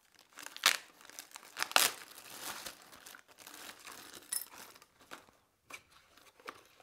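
Zip-top plastic bag crinkling as it is pulled open and handled, in irregular crackles, the loudest two in the first two seconds. Near the end, a small cardboard box is opened.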